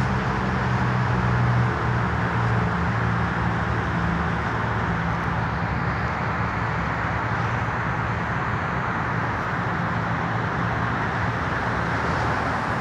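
Steady road noise of a car driving, a constant rush with a low engine hum under it.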